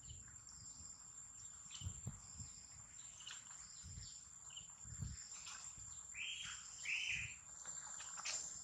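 Forest ambience: a steady high-pitched insect drone, with two short, high calls about six and seven seconds in and a few soft low thumps.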